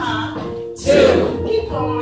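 Recorded music with singing: held notes over a steady bass, with a loud sung note about a second in.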